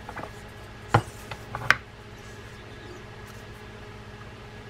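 A few sharp clicks and knocks, two of them louder about a second apart near the start, as a spinning reel's spool is handled and set down on a wooden workbench.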